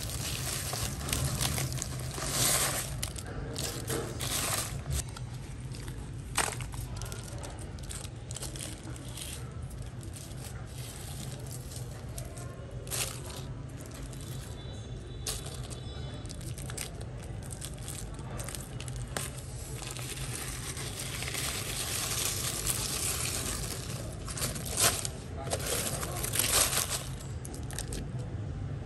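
Aluminium foil crinkling and tearing as it is peeled back by hand, with salt crust crumbling and crunching, in irregular rustles and sharp crackles. A steady low hum runs underneath.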